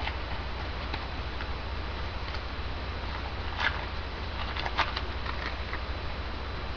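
Trading cards being handled and flipped through: a few short rustling clicks over a steady electrical hum and hiss.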